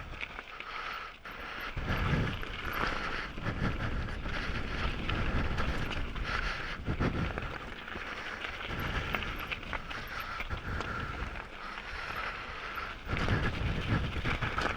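Heavy breathing into a microphone placed right in front of the mouth: each exhale buffets the mic as a low puff, repeating every couple of seconds over a steady hiss.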